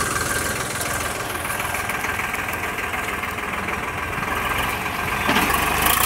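ACE 550 NG tractor's diesel engine running steadily while its front loader works, getting a little louder about five seconds in.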